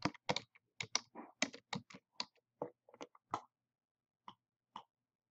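Computer keyboard keys tapped in a quick run while a name is typed, followed by two more single clicks about a second apart.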